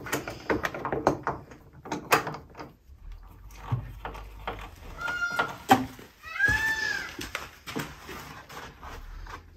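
Knocks and clicks of a long wooden plank being handled on a workbench and clamped in a bench vise. Midway come two short, high squeaks, the second rising and falling.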